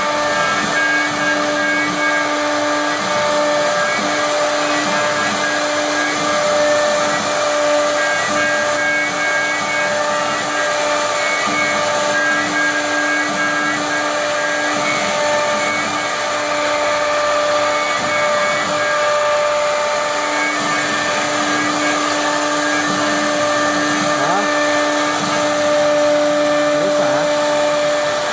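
CNC router running: a steady, even-pitched whine from its spindle over a constant hiss of machining noise. The lowest part of the whine breaks off briefly a few times.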